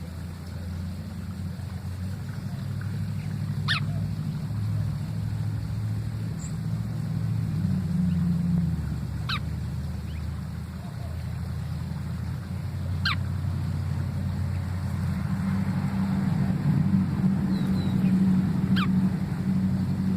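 Four quick, sharply falling whistled calls from a bird, spaced about four to five seconds apart, over a loud, steady low rumble.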